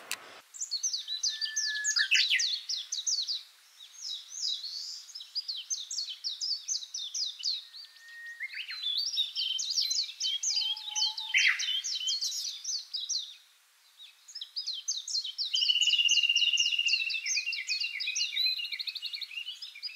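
Songbirds chirping in quick, overlapping runs of high chirps, pausing briefly twice, with a longer high whistle running into a trill a little over three-quarters of the way through.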